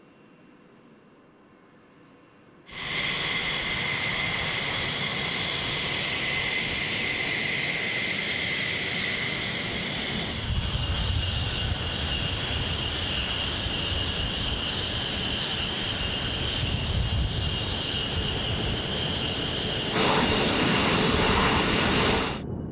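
Fighter jet engines running at taxi power: a steady high whistling whine over a rumble, starting abruptly about three seconds in. About ten seconds in the whine's pitch mix changes and the low rumble grows, and near the end it gets louder before cutting off.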